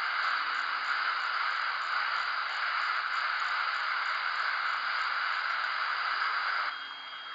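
Shortwave static from a software-defined radio tuned near 3.1 MHz through a Ham It Up upconverter: a steady hiss with no station. About 6.7 s in, the hiss drops in level and a thin steady tone comes in as the tuning shifts.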